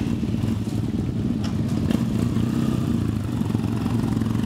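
Yamaha XTZ adventure motorcycles running at low speed one after another as they ride slowly past, a steady low engine note with a couple of light clicks about a second and a half in.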